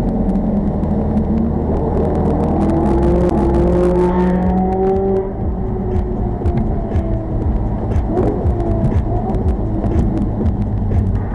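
Car engine accelerating, its pitch rising through the revs for a few seconds, then settling into steadier running with road noise and scattered light clicks, heard from inside the car.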